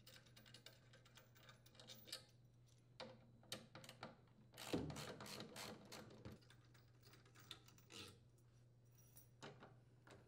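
Faint scattered clicks and taps of a 10 mm socket wrench being worked on the stator mounting bolts of an LG top-load washer, with a louder clatter about five seconds in.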